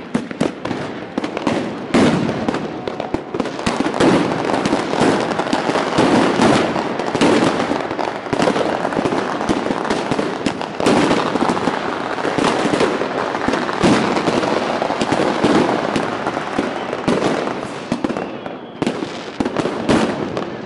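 A dense barrage of hand-lit fireworks and firecrackers going off all around at close range: rapid, overlapping cracks and bangs over constant crackling.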